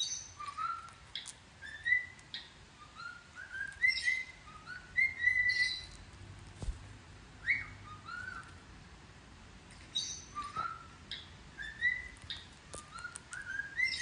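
Pet parrot whistling a short tune over and over: phrases of rising whistled notes with a few higher chirps, pausing briefly in the middle before starting again.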